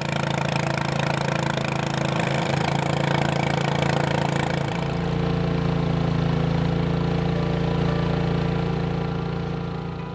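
Engine of a small longtail 'ces' motorboat running steadily under way. About halfway through its note shifts, the low hum growing stronger as the higher hiss thins, and it fades near the end.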